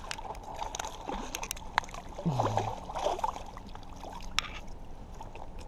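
Water splashing and sloshing as a hooked smallmouth bass thrashes at the surface of shallow river water, in irregular bursts of splashes over the running water.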